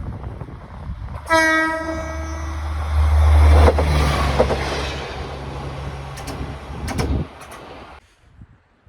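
Passing train sounding its horn once, a blast of just over a second about a second in. Then a heavy low rumble as it runs by, with a few sharp wheel clacks over rail joints near the end, before the sound cuts off suddenly.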